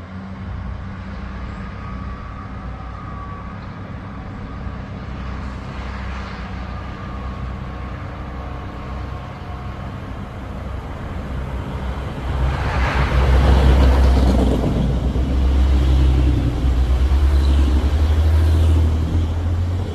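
Diesel multiple-unit passenger train approaching and passing close beneath: a low engine drone with wheel and rail noise that grows, gets loud from about twelve seconds in as the train runs under, and drops away just before the end.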